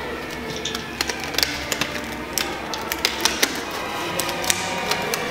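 Irregular sharp clicks and taps, about a dozen loud ones, over a faint steady musical background.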